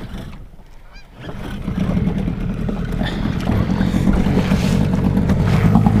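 Boat outboard motor starting up about a second in and running, growing louder as the jon boat gets under way.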